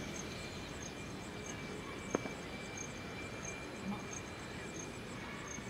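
Faint outdoor ambience: insects chirping in a steady, evenly repeating high-pitched pulse over a low hiss, with one short click about two seconds in.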